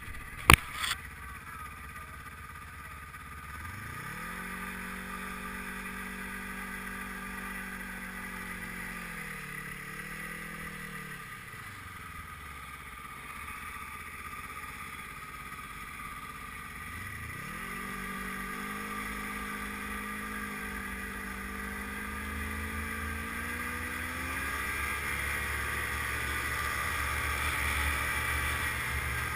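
Snowmobile engine revving up and holding a steady high pitch for several seconds, twice over, the second time creeping slightly higher. Near the end a low rushing of track and wind grows louder as the sled runs along. Two sharp knocks come at the very start.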